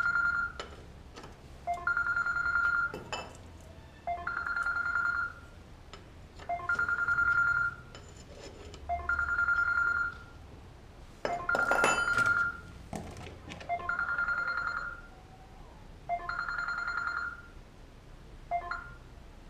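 A phone ringing: the same steady ring, about a second long, repeats every two and a half seconds, about eight times, the last one cut short near the end. A sharp clatter about twelve seconds in.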